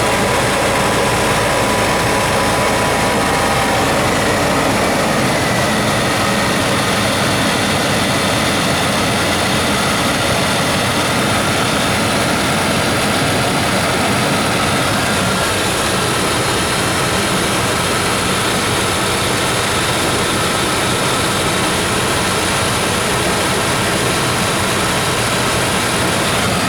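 1994 Chevy Silverado's 350 V8 engine idling steadily. The owner says it is running very rich.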